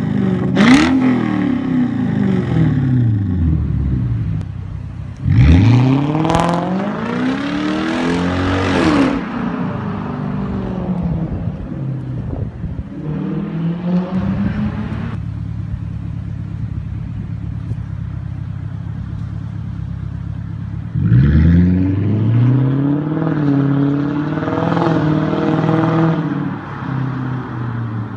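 Lexus GS430's 4.3-litre V8, with the rear and centre silencers deleted and the cats and resonator left in, revved in quick blips and then accelerating hard twice, its exhaust note climbing in pitch and falling away. Between the two pulls it runs at a steady note.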